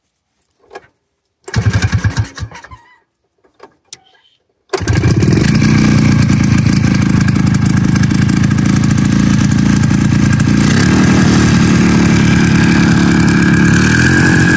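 Snowmobile engine on a converted lawn mower being pull-started: it fires briefly about a second and a half in and dies, then catches just before five seconds in and keeps running steadily, its pitch shifting slightly about ten seconds in and rising a little near the end.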